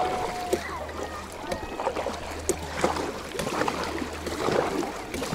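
Sea water lapping and splashing around a kayak, with scattered faint distant voices and a steady low rumble underneath.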